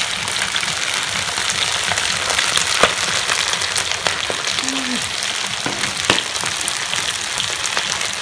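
Frog pieces deep-frying in a wok of hot oil: a steady sizzling hiss with scattered sharp crackles and pops.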